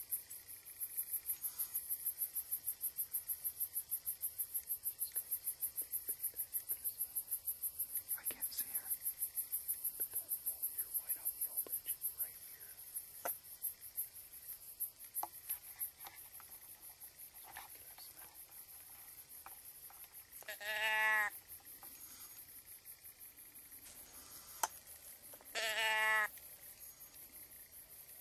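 Insects chirping in a fast, even high-pitched pulse, about four or five beats a second, fading after the first twelve seconds or so. Later, two short deer bleats, each under a second, about five seconds apart.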